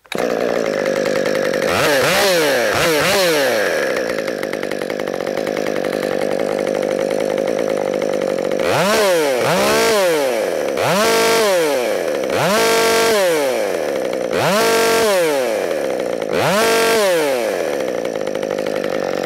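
Two-stroke chainsaw idling and being revved in the air about eight times, two quick blips early and a run of six later. In the later revs the engine climbs to full throttle, holds there for about a second, then drops back to idle.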